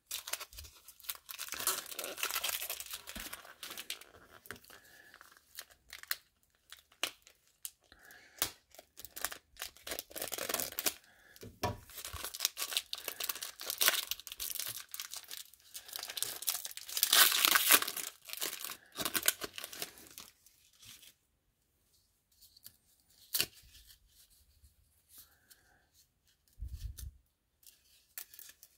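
Foil baseball-card pack wrapper being torn open and crinkled by hand in repeated bursts. Near the end it turns quieter, with a few light clicks as the cards are handled.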